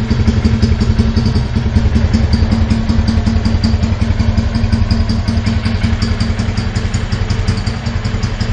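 Motorcycle with a modified 'bate lata' exhaust idling steadily, its rumble broken into a rapid, even, clattering beat with no revving.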